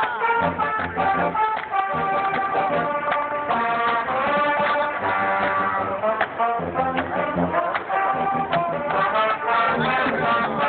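Marching band playing: brass, including sousaphones, sounding a melody over held chords, with drum hits.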